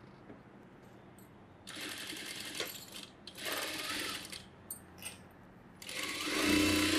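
Sewing machine stitching a seam in blouse fabric in short runs: it starts about a second and a half in, pauses, runs again for about a second, and after a couple of light clicks starts a longer run near the end.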